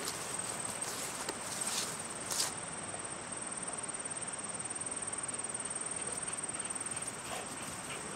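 Insects trilling, one high, continuous and rapidly pulsing note, with a few short rustling clicks in the first couple of seconds.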